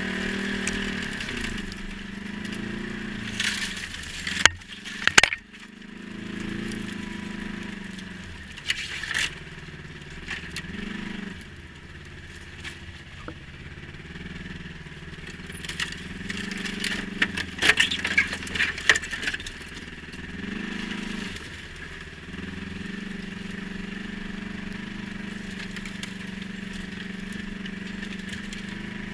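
ATV engine running, its pitch rising and falling as the throttle is worked, with crunching and crackling noise and a few sharp knocks about four to five seconds in.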